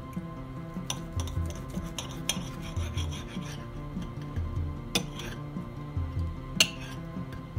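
A metal fork scraping and clicking against a ceramic plate as it tears apart a roast chicken thigh, with one sharp clink near the end. Background music with a repeating bass line plays underneath.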